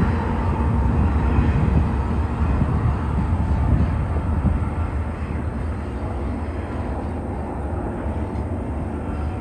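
Double-stack container train rolling past at a distance: a steady low rumble of wheels on rail that eases a little about halfway through.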